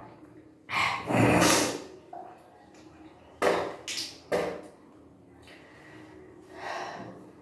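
A person retching and gasping while bringing up the drunk salt water in kunjal kriya: a long retch about a second in, three short heaves in the middle, and a fainter one near the end.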